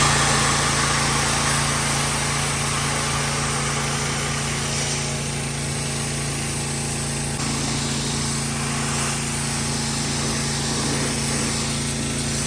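Pressure washer running steadily, with the hiss of its high-pressure water jet over a constant machine hum.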